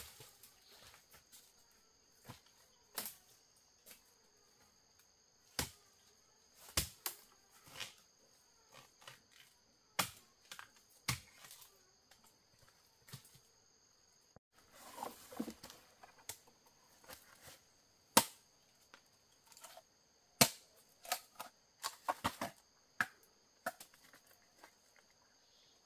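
Irregular sharp knocks and clicks, the loudest about 18 and 20 seconds in, over steady high-pitched insect calls.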